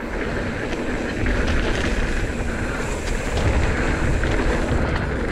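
Wind rushing over the microphone of a mountain bike speeding down a dirt downhill trail, with tyre roar and the bike's parts rattling and clicking over the bumps.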